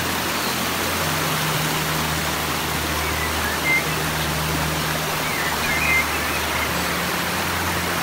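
Steady rushing hiss of a waterfall and a stream cascading over rocks. Background music with sustained low notes plays underneath, and a few short high chirps come about three seconds in and again about six seconds in.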